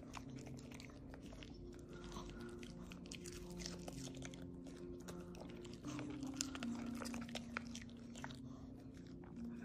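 A Maltese dog chewing small cubes of cucumber, with faint, crisp, irregular crunches throughout.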